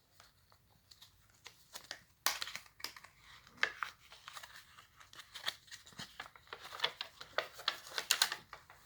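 Packaging being handled and opened by hand: irregular crinkling and tearing of paper and plastic wrapping, picking up about two seconds in.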